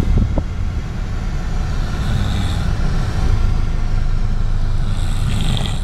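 A person snoring loudly: a steady low rumble, with a higher hiss twice, about three seconds apart.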